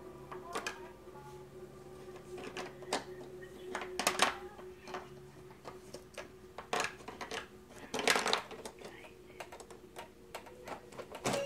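Plastic toy pieces on a baby's activity-jumper tray clacking and rattling as the baby handles and bangs them: a string of uneven sharp clacks, several louder knocks among them, over a faint steady hum.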